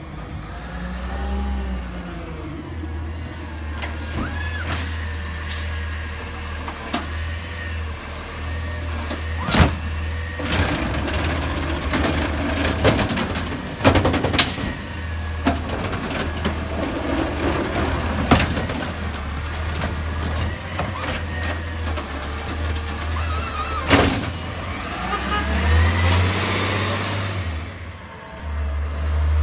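Autocar ACX garbage truck's natural-gas engine running steadily while its McNeilus ZR automated side-loader arm lifts a cart and tips it into the hopper, with four sharp bangs as the cart knocks against the hopper. Near the end the engine gets louder as the truck pulls away.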